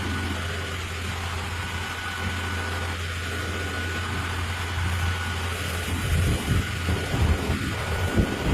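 Concrete pump truck's engine running steadily, with a low hum and a thin, steady high whine. About six seconds in it turns uneven, with irregular louder surges and knocks.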